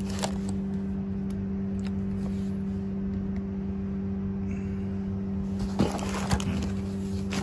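A steady machine hum runs throughout, with a few faint cardboard scrapes and taps as a laptop's inner packing tray is slid in and out of its corrugated cardboard box, including two small ticks near the end.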